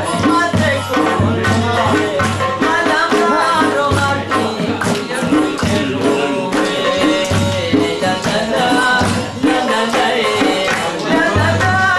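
Khowar folk song: a man singing over a steady, quick beat of hand-drum percussion.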